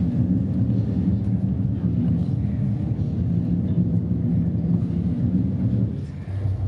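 Low, steady rumbling drone from a performance soundscape. It dips and drops slightly lower in pitch a little before the end.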